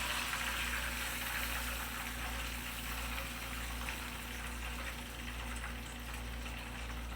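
Cornmeal-breaded tilapia fillets sizzling steadily in hot frying oil in a pan.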